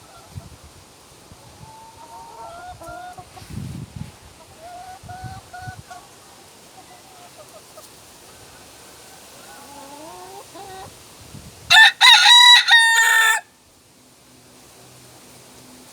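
North Holland Blue rooster crowing once, loud and short, about twelve seconds in, with fainter calls before it.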